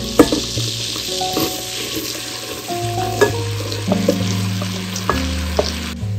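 Chopped onions tipped into hot foaming butter in a stainless steel pot, frying with a steady loud sizzle, with a few sharp taps as the first pieces land near the start. The sizzle cuts off suddenly near the end, over background music.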